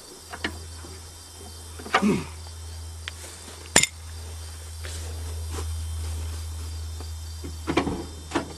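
Insects chirping steadily, with a few sharp clicks and knocks scattered through; the loudest knock comes about four seconds in.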